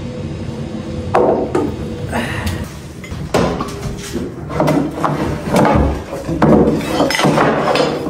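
Irregular knocks and clinks on a glass bowl as a cow eats cereal from it, its muzzle bumping the bowl.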